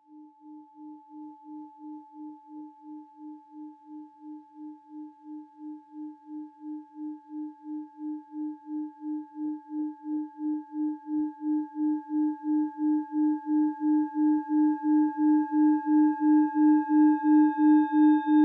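Singing bowl rubbed around its rim: one steady low tone with a wobble about three times a second, swelling louder throughout, with a fainter higher ring above it.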